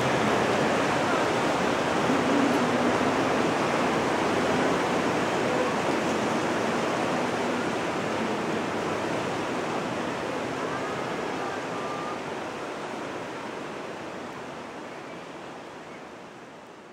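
Steady, even rushing outdoor noise with no rhythm, fading out gradually over the last several seconds.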